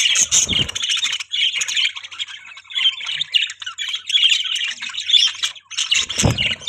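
A flock of budgerigars chattering with continuous warbling chirps and squawks. There is a dull low thud about half a second in and another near the end.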